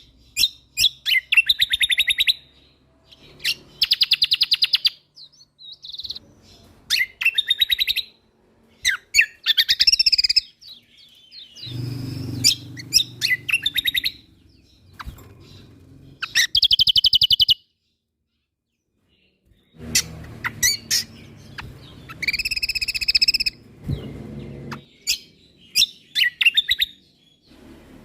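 Kecial kombok, the Lombok songbird also called cucak kombo, singing in full voice: bursts of fast, rattling trills and sharp chirps, broken by a pause of about two seconds past the middle.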